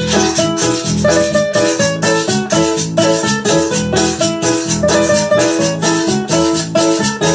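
Instrumental passage of a praise song: a nylon-string classical guitar strummed and an electronic keyboard playing chords, with a hand shaker keeping a steady beat.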